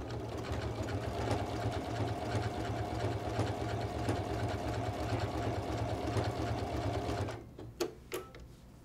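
Janome Memory Craft 14000 sewing machine running at a steady fast speed, stitching through a quilt binding. It stops about seven seconds in, followed by a couple of short clicks.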